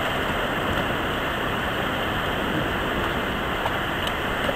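River water rushing over rapids: a steady, even noise of moving whitewater.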